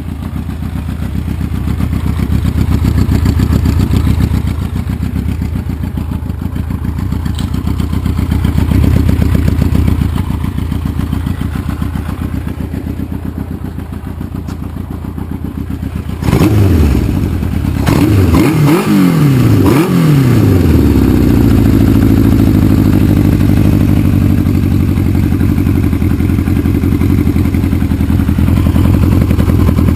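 1984 Kawasaki ZN700's inline-four engine running through baffled straight pipes, fairly quiet at first with two throttle swells. About halfway through it suddenly gets louder, the pitch falls and rises several times, then it settles into a steady, higher run.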